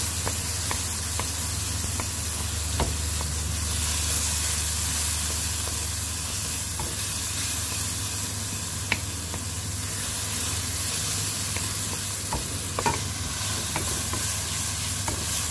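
Onion and tomato masala sizzling in a metal kadai as a wooden spatula stirs it, with scattered light taps and scrapes of the spatula against the pan. A steady low hum runs underneath.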